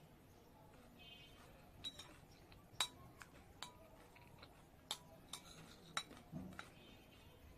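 Spoon or fork clinking against a plate or bowl while salad is scooped up: a handful of sharp clinks spaced irregularly, the loudest about three and six seconds in, with a soft thump near the end.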